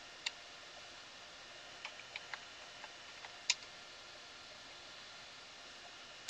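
Computer keyboard keys clicking: one keystroke just after the start, then a quick run of about seven between about two and three and a half seconds in, the last one the loudest, over a faint steady hiss.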